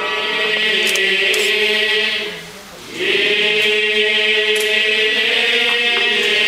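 Buddhist sutra chanting at a Jodo Shinshu temple service: voices in unison sing long, held notes. The chant breaks off briefly about two and a half seconds in, then resumes.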